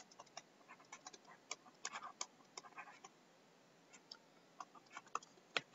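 Digital pen stylus tapping and sliding on a writing surface while handwriting: faint, irregular clicks and ticks, with a short pause about three seconds in.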